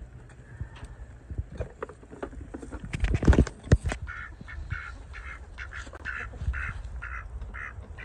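Ducks quacking over and over, about three short quacks a second, from about halfway in. Just before the quacking there is a short burst of loud knocking and rustling.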